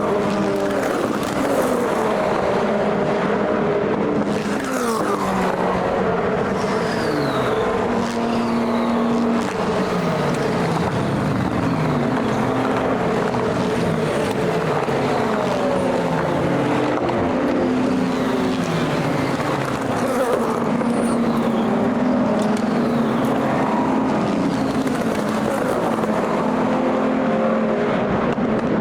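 Several endurance race cars at full throttle going past one after another. Their engine notes step up and down through gear changes and fall in pitch as each car goes by, with no pause in the noise.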